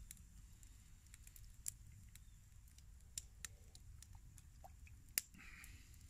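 Near silence, with a dozen or so faint, scattered sharp clicks and ticks; the clearest comes about five seconds in.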